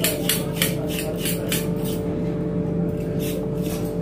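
Carrots being peeled with a hand vegetable peeler: quick rhythmic scraping strokes, about three a second, thinning out after the first couple of seconds, over a steady low hum.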